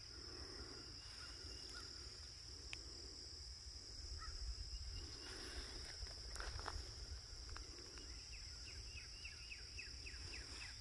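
Steady high-pitched drone of insects in a grassy field, with soft footsteps through grass about once a second. Near the end, a bird gives a quick run of short falling chirps.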